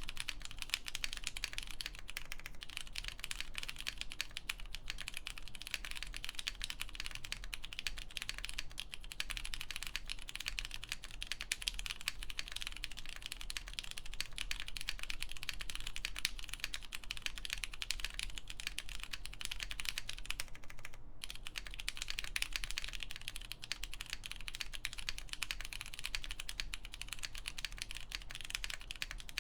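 Continuous fast typing on a custom 65% mechanical keyboard: an MM Studio Class65 V3 with lubed Cherry MX Purple tactile switches on a polypropylene plate, under CRP keycaps. The keystrokes run in a dense stream, with a brief pause about two-thirds of the way through.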